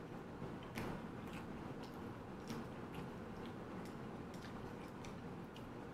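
Close eating sounds: chewing a mouthful of banh xeo, a fried rice-flour crepe, with scattered small sharp clicks as chopsticks pick food from a ceramic bowl. The loudest clicks come about a second in and again about two and a half seconds in.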